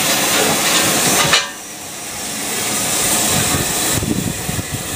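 Southern Railway Schools Class 4-4-0 steam locomotive hissing steam as it moves off. The loud hiss cuts off suddenly about a second and a half in, then builds back up.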